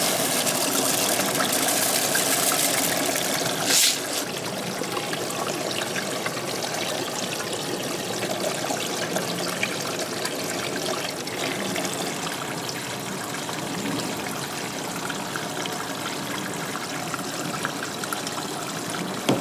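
Laundry scent beads poured from a plastic bottle, a bright hiss for the first four seconds ending in a short louder burst. Then liquid laundry detergent is poured into a front-loading washer's detergent drawer, over the steady noise of running laundromat washing machines.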